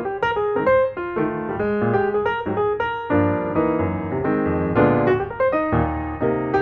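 Background music: a light keyboard tune, notes struck in quick succession.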